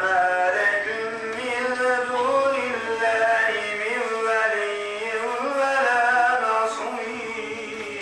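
A man chanting a Turkish mevlid recitation unaccompanied: one long ornamented phrase of held notes that bend and waver, taken up again after a short breath.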